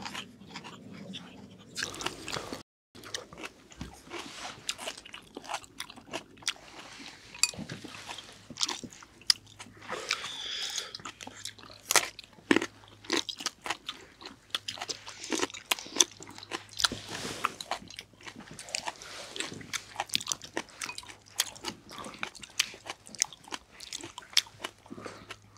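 Close-up chewing and crunching of mouthfuls of grilled pork belly and crisp greens, many sharp irregular bites.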